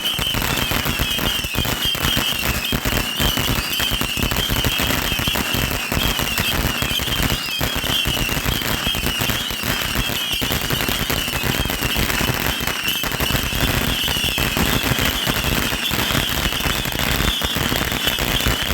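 Fireworks crackling and popping in a dense, unbroken rapid series, like a long string of firecrackers or a crackling fountain. A wavering high whistle-like tone runs through it.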